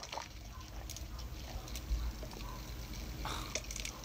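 A person sipping soda through a straw, with wet sucking and liquid sounds.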